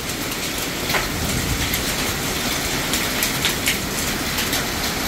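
Heavy rain pouring down in a steady hiss, with irregular sharp knocks of large hailstones striking hard surfaces.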